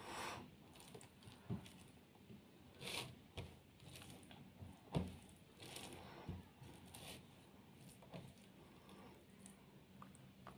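Faint, scattered soft squishes and crackles of bare fingers tearing fried aubergine (begun bhaja) and mixing it into rice on a plate, with a few sharper little clicks.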